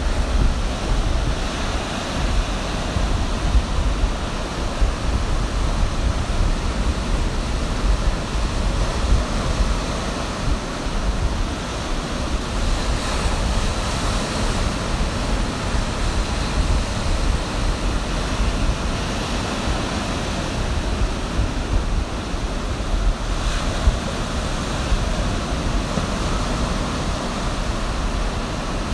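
Ocean surf breaking and washing up the beach in a steady wash, with louder breakers about 13 seconds in and again near 24 seconds. Wind buffets the microphone with a low rumble underneath.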